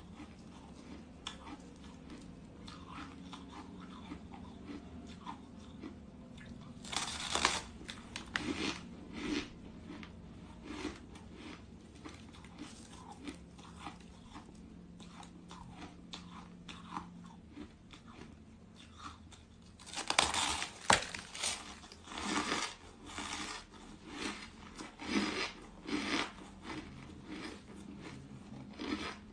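Crisp crunches of a person biting into a slab of powdery frozen ice and chewing it. There are two big bites, about seven seconds in and again about twenty seconds in, each followed by crunching chews about once a second.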